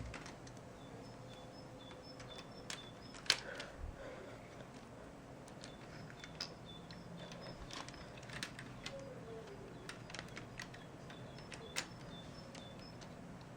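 Scattered sharp clicks, a dozen or so at irregular intervals, the loudest a little over three seconds in, over a low steady hum. Faint short high chirps repeat in the background.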